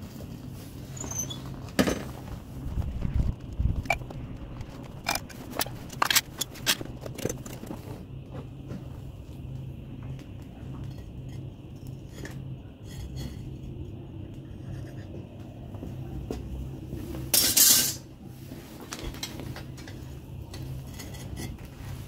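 Metal clinks and knocks of foundry tools over the steady hum of a gas furnace burner, during a copper and zinc melt for navy bronze. A short, loud rushing burst comes about 17 seconds in.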